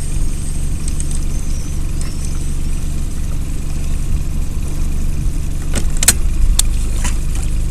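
Boat motor running steadily: a low rumble with a steady hum under it. A few sharp clicks come about six seconds in.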